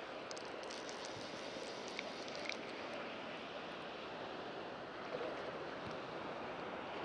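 Steady rush of flowing water, with a few faint light clicks in the first few seconds.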